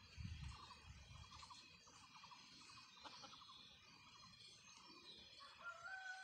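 Near silence: faint outdoor ambience with a soft low rumble in the first second, a faint rapid trilling, and a faint drawn-out call starting near the end.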